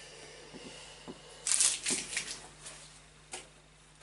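Light clicks and clattering of loose, broken-off plastic keys from a Yamaha DX11 synthesizer and a cable being laid on top of its keyboard. The loudest part is a quick flurry of clicks and rattles about one and a half seconds in.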